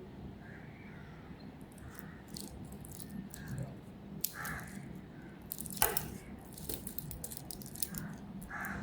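Faint, scattered rattles and clicks of a wristwatch being handled and moved on the wrist, with one sharper click about six seconds in.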